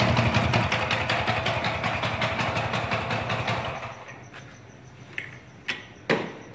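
Vintage Vespa PL170 scooter's two-stroke single-cylinder engine idling with fast, even firing pulses, then shut off about four seconds in. Three short sharp knocks follow near the end, the last one the loudest.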